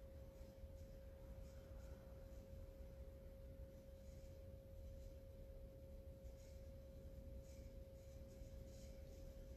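Near silence: room tone with a faint, steady single-pitched hum and a low rumble underneath.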